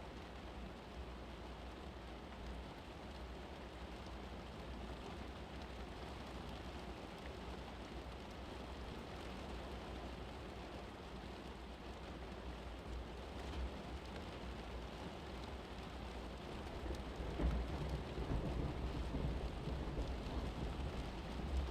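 Steady rain falling, with low rumbles of thunder growing louder in the last few seconds.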